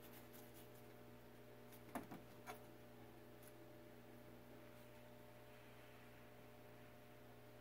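Near silence: a steady low room hum, with three faint taps close together about two seconds in.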